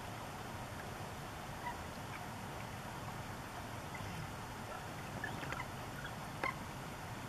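Bald eagle giving short, high chirps, scattered and faint over a steady background hiss, coming more often in the second half, with a sharper note about six and a half seconds in.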